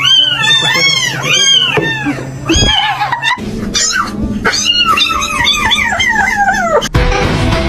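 A domestic cat meowing: a quick run of short rising-and-falling meows, about three a second, then one long wavering yowl that slides down in pitch and breaks off near the end.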